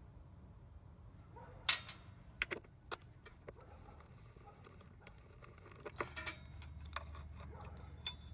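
Scattered sharp metal clinks and clicks of an 8 mm socket, extension and a removed bolt being handled on a scooter's drive belt cover, the loudest about two seconds in and a quick cluster around six seconds.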